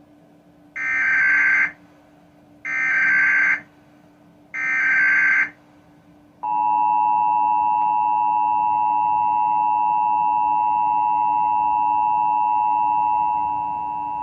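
Emergency Alert System signal from a cable box: three short, buzzy bursts of SAME digital header data, then the steady two-tone EAS attention signal (853 and 960 Hz) for about eight seconds, marking the start of an emergency alert, here the national periodic test.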